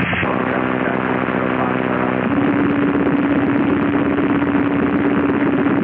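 Garbled aviation radio transmission over the headset: a steady rushing noise with a buzzing hum, and a steady tone that joins about two seconds in.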